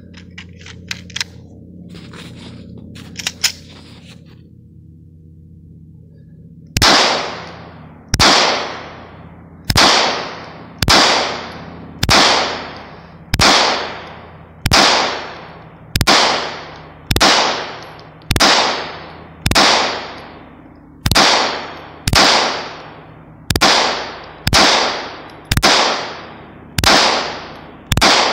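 A Gen4 Glock 17 9mm pistol fed from a 50-round SHK drum magazine fires a steady slow string of about eighteen shots, roughly one a second, each report trailing off in a short echo. The shots run evenly with no stoppage, the drum feeding reliably. Before the firing begins, about seven seconds in, there are a few light clicks.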